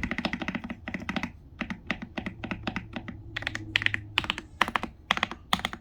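Typing on an Anne Pro 60% mechanical keyboard fitted with Holy Panda tactile switches. A fast flurry of keystrokes in the first second or so is followed by a more uneven run of clacks, with a few louder strokes.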